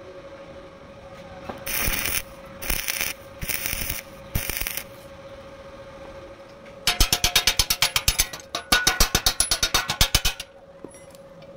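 Four short bursts of stick-welding arc crackle as tack welds are laid on a steel spring-compressor tool. About two seconds later comes a rapid run of hammer taps, roughly nine a second for three and a half seconds, chipping slag off the welds.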